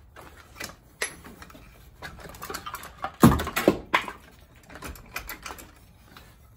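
Scattered metallic clicks and knocks of hand tools and engine parts being handled and worked on an engine's front accessory brackets, with one heavier thud about three seconds in and a couple of sharp knocks just after.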